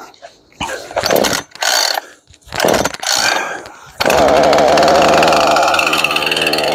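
Two-stroke chainsaw being pull-started: four short yanks of the starter cord, then about four seconds in the engine is running steadily at a slightly wavering pitch.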